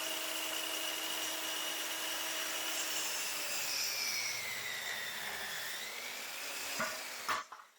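Compound miter saw running and cutting crown molding. Its motor whine sinks in pitch from about three seconds in as the blade goes through the wood and rises again near six seconds. There are a couple of short knocks before the sound cuts off.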